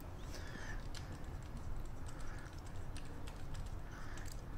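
Light, irregular clicks and scrapes of a screwdriver working a small screw out of an electric bike's frame, over a low background rumble.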